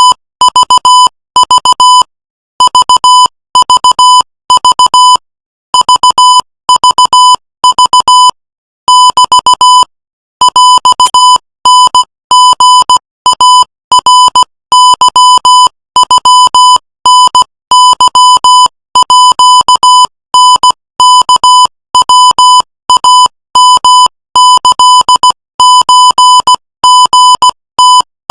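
Morse code sent at 18 words per minute: a single electronic beep tone keyed on and off in short dots and longer dashes, with short pauses between letters and longer ones between words.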